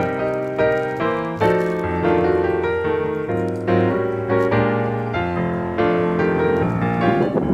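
Background piano music, notes and chords struck about twice a second and left to ring.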